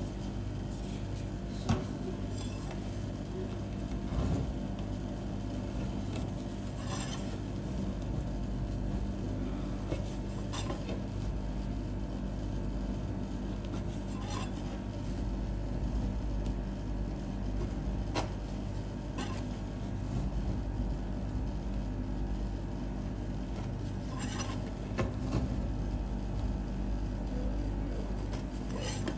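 Metal spatula scraping and clicking against a steel ice cream cold plate as frozen ice cream is pushed up into rolls, in scattered short strokes over a steady low machine hum.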